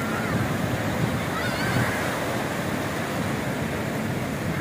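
Sea surf washing in, a steady rushing wash of waves, with wind buffeting the microphone.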